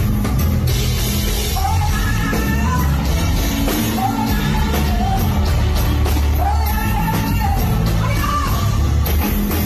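Live band music played loud, with a heavy, steady bass and a singer's voice carrying the melody over it.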